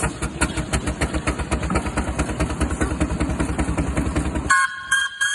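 Miniature steam engine running with a fast, even beat of exhaust chuffs. About four and a half seconds in the chuffing stops and a steam whistle gives a few short toots.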